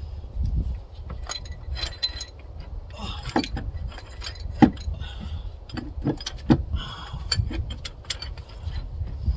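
Hand tools working on the rocker-arm assembly of a Caterpillar 3406B diesel head: a run of irregular ratchet-like clicks and metal clinks, with two sharper metal knocks about halfway through and a little later.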